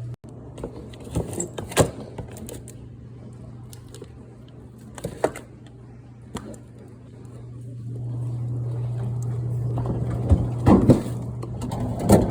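Food containers and fridge shelves being handled and set down, giving scattered knocks, clicks and clatter over a steady low hum. The handling gets busier and louder in the last few seconds.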